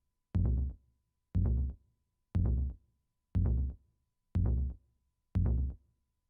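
Kick drum sample from a Rossum Assimil8or processed through Mutable Instruments Rings in audio mode, so each hit comes out as a pitched, resonant tone. It strikes about once a second, six times, each hit with a sharp click and a short ringing decay. Only one of Rings' two outputs is heard.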